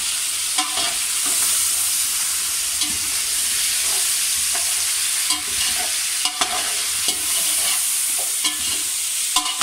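Chicken pieces, tomatoes and green chillies sizzling in hot ghee in a large metal pot while being stirred with a metal slotted spoon, which scrapes and clinks against the pot now and then over the steady hiss of frying.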